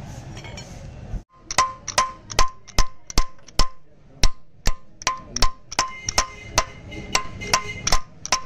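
Hammer blows on a diesel engine's crankshaft timing gear, driving the gear onto the shaft. A steady run of sharp metal strikes, about two or three a second, each with a short ring, starting a little over a second in.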